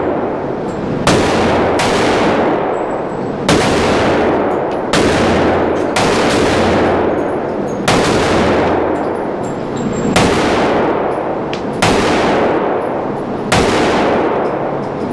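Single gunshots at a shooting range, about nine of them spaced one to two seconds apart, each followed by a long echoing decay.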